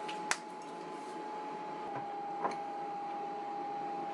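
Steady hum of a running kitchen appliance, with one sharp click about a third of a second in and a softer one about two and a half seconds in, as kitchen items are set down or touch a ceramic bowl.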